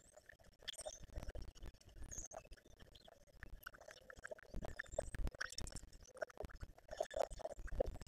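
Grackles crowding a bird feeder: a busy patter of wing flutters, with many small clicks and taps of beaks and feet on the feeders and short bird chirps in between.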